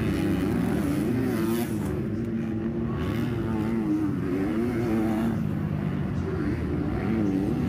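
Supercross dirt bike engines revving up and down on the track, their pitch rising and falling over and over.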